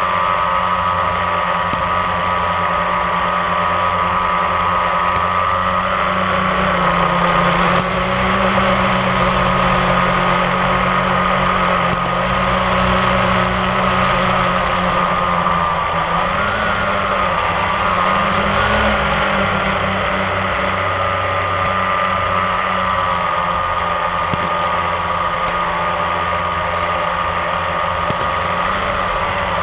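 Multirotor drone's propellers and motors whining steadily in flight, the pitch wavering briefly a little past halfway as it adjusts.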